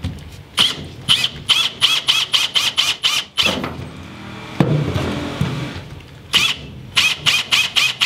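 A metal tool working the edge of a hole in steel plate, squealing in quick repeated strokes about four a second. The strokes come in two runs with a pause of about three seconds between them, as the cable-gland hole is opened up to 22 mm.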